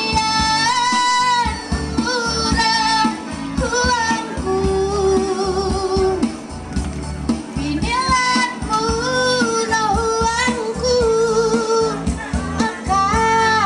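A woman singing into a microphone over backing music, her voice amplified through a PA loudspeaker; long held notes with vibrato.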